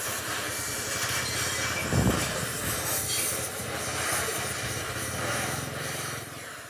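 Hand-held gas torch flame running with a steady hiss and low rumble, heating an aluminium wheel rim so it can be straightened. A dull knock about two seconds in.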